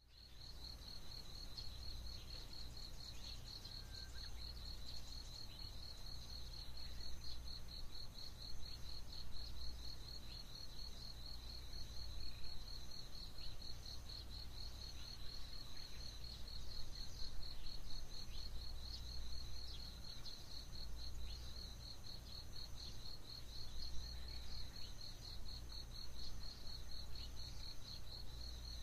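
Early-morning outdoor ambience: an insect chirps steadily in a fast, even pulse, with a fainter, higher insect buzz coming and going. Faint bird calls sound now and then over a steady low rumble.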